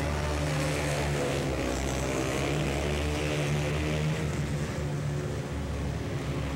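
Racing ATV engines, Honda TRX250R two-stroke quads among them, running hard on the track and rising and falling in pitch.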